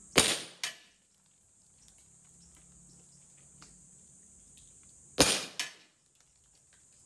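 Glock 48 9mm pistol fired down range: two sharp reports about five seconds apart, each followed within half a second by a second, quieter report.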